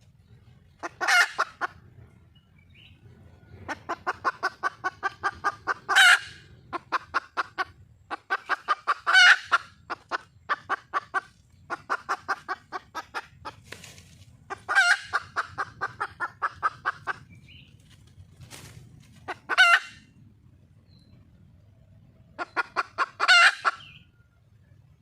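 Junglefowl hen calling for a mate: runs of quick clucks, about five a second, each building to a louder, drawn-out cackling call. The pattern repeats about six times over a faint low background rumble.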